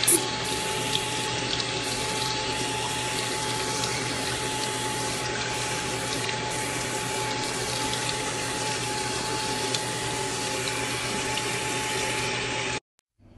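Bathroom sink faucet running steadily, its water pouring over a soapy kitten and the hands washing it in the basin, with a thin steady tone under the splashing. The sound cuts off abruptly near the end.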